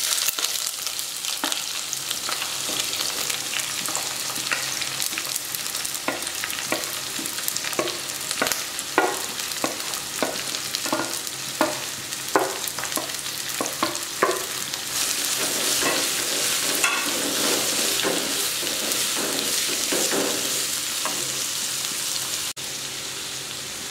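Sliced onions sizzling in hot coconut oil in a clay pot, with a run of knocks and scrapes as they are tipped in and stirred. The sizzling grows denser and louder for the last third.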